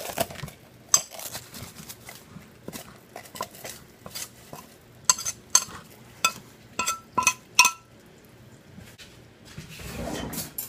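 Metal butter knife tapping and clinking against a glass measuring cup as plastic wrap is worked off the top of the hot candy syrup. The clinks are scattered, with a quick run of short ringing ones about seven seconds in.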